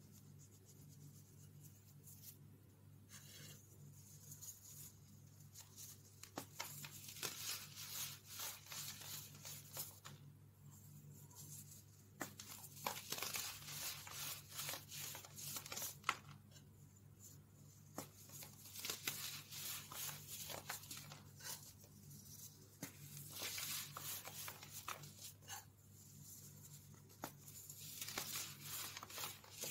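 Hands crushing and crumbling chunks of baking soda: a dry, crunchy crackling that comes in several bursts with short pauses between them.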